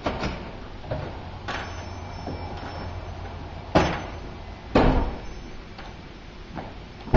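Metal-framed glass front door being knocked on and handled: a handful of sharp knocks and thuds, the loudest about four and five seconds in.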